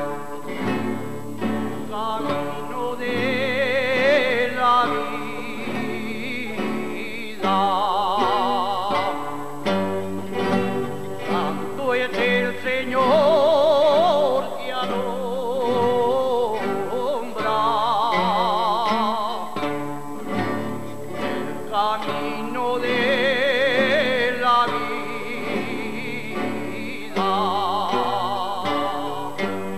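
Aragonese jota: a rondalla of guitars and Spanish lutes playing, while a man sings several long phrases with wide vibrato over it.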